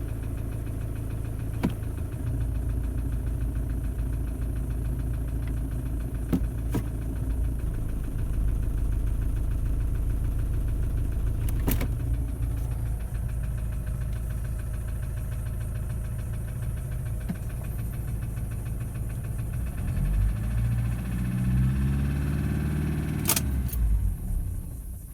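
Toyota 1KD-FTV four-cylinder turbodiesel running with a knock whose cause has not been found; replacing the injectors did not cure it, and scoring in the third cylinder is suspected. Near the end the engine slows and stops.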